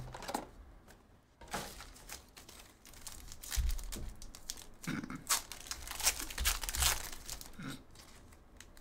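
A foil trading-card pack being torn open by hand, its wrapper crinkling and crackling irregularly, with some card and cardboard handling.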